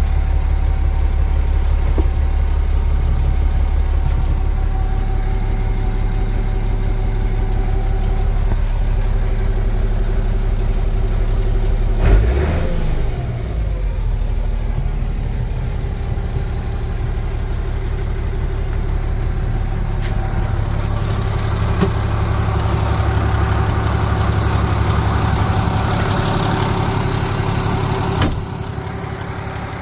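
International 1056XL tractor's turbocharged six-cylinder diesel idling steadily. A brief sharp noise sounds about twelve seconds in, and a short knock near the end.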